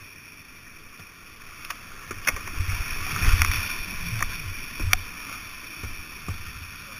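Whitewater rushing and splashing around a kayak running a river drop, heard through a helmet camera. From about two seconds in, water surges against the boat and camera in low rumbling buffets with several sharp knocks, loudest near the middle, then eases back to a steady rush.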